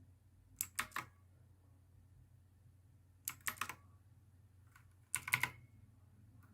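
Keys being pressed on a Black Shark Sixgill K2 mechanical keyboard with clicky blue switches, in three short flurries of a few sharp clicks each, with pauses of about two seconds between them.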